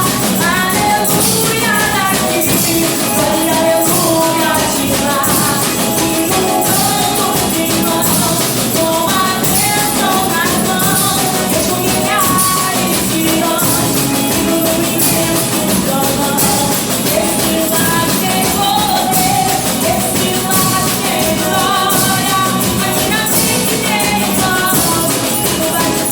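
A worship song played by a percussion band: singing carried over steady drums and cymbals.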